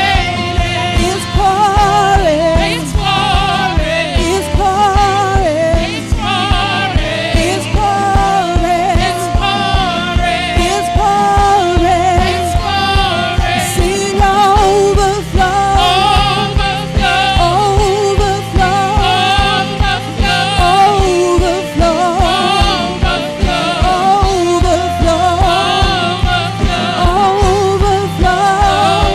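Live gospel worship band: several women singing a melody with vibrato over a steady drum-kit beat, bass and electric guitar.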